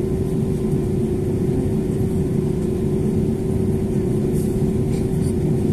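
Steady engine and air-conditioning noise inside the cabin of an Airbus A320neo idling on the ground. It is a constant low rumble with a steady hum on top.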